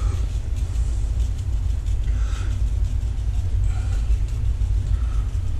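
A steady low rumble throughout, with the faint crunching of a hand salt grinder being twisted.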